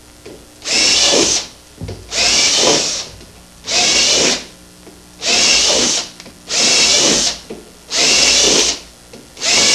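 Power drill with a quarter-inch bit boring holes through a dried gourd's shell, in seven short bursts of under a second each with pauses between: drainage holes drilled one after another.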